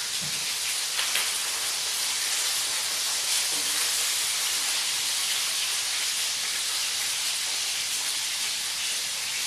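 Asparagus pieces sizzling in hot oil in a wok, a steady loud hiss with a few faint crackles.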